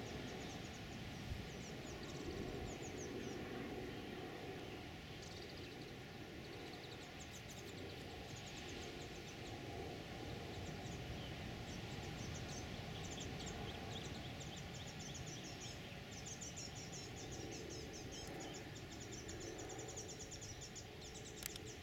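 Outdoor ambience: a steady background hiss and hum, with runs of quick, high-pitched chirps throughout.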